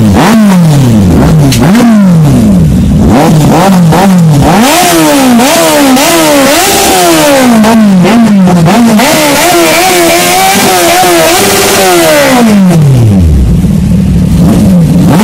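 Kawasaki Z800's inline-four engine revved in repeated sharp throttle blips, each rising and dropping back. About nine seconds in it is held high for a few seconds, then falls back to idle near the end.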